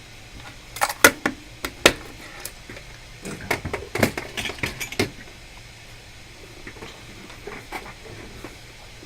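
Sharp clicks and light clatter of small metal hand tools being handled on a repair bench, bunched in two clusters in the first half, then a few faint ticks, over a steady low hum and hiss.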